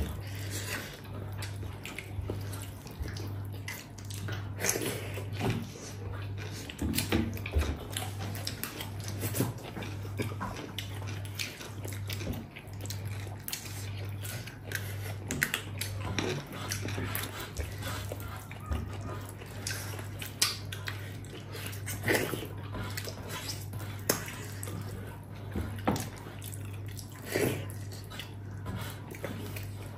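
Close-up eating sounds: wet chewing and smacking of pork trotter achar with rice, slurps of gundruk soup, and many small scattered clicks, over a steady low hum.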